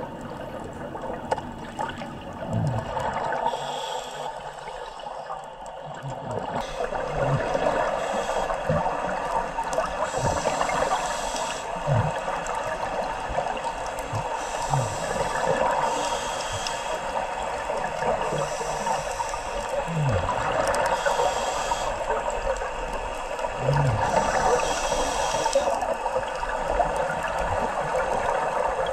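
A scuba diver breathing underwater through a regulator: a recurring cycle every four to five seconds of hissing breaths and rushing exhaust bubbles, with short low squeaks and groans from the regulator.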